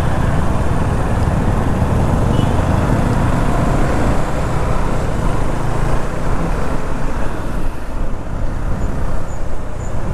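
Steady low rumble of a KTM 390 Duke's single-cylinder engine on a slow ride through traffic, mixed with surrounding road and traffic noise.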